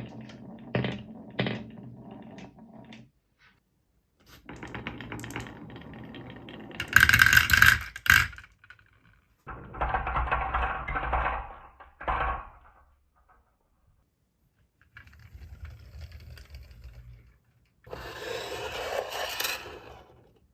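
Marbles rolling and clacking down toy tracks and ramps in several separate runs, with short pauses between and sharp clicks where they strike; the loudest clatter comes about seven seconds in.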